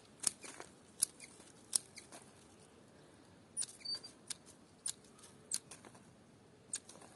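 Hand pruning shears snipping through dry stems and roots of a heuchera clump: about ten crisp, irregular cuts, trimming away old growth while the plant is divided.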